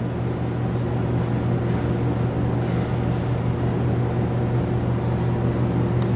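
Steady low machine hum, even and unchanging, with a faint brief high tone about a second in.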